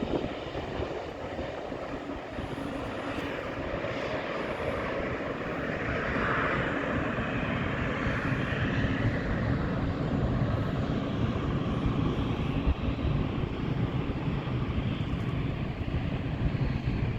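Airliner jet engines, a steady rushing drone that grows gradually louder, with a brighter rush about six to eight seconds in.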